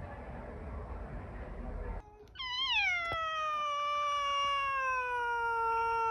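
An orange tabby cat gives one long, drawn-out meow starting about two seconds in: it rises briefly, slides down in pitch, then holds nearly level for several seconds. Before it, a steady low noise.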